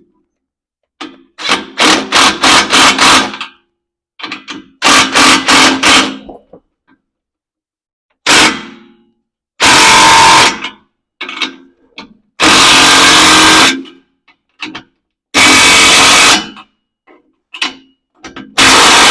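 A handheld power tool run in repeated loud bursts: two runs of rapid pulsing in the first few seconds, then several steadier bursts of a second or so each. It is working the new muffler's exhaust hardware under the vehicle.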